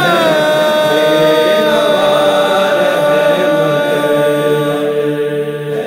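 Wordless vocal chant held as a steady drone. It slides down in pitch in the first second, then holds, closing a sung hamd.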